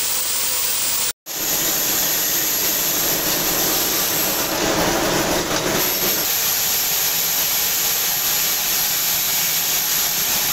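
Bolt-making machine running with a steady, hiss-like mechanical noise. The sound cuts out for an instant about a second in, then carries on, louder for about a second and a half midway.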